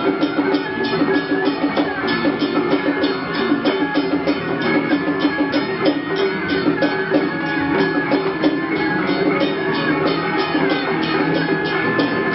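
Temple procession music: fast, even percussion beats, about four to five a second, under a held melodic line.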